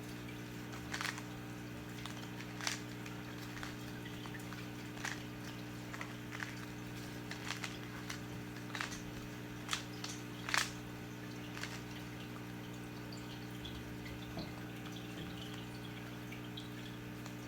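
Rubik's Cube being twisted by hand to scramble it: scattered short plastic clicks at irregular intervals over a steady low hum.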